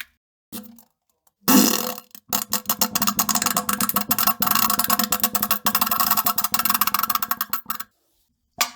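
A series of fart sounds: a short blip, then a loud burst about a second and a half in, then one long, rapid fluttering fart lasting about five and a half seconds. Another starts just before the end.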